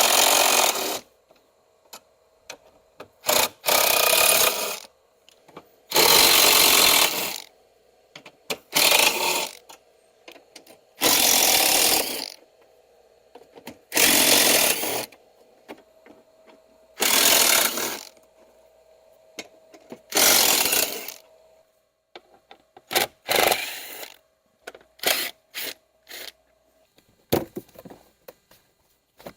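A handheld power tool run in repeated bursts of about a second each, a few seconds apart, then in shorter, quicker bursts near the end, with a faint steady hum between the bursts.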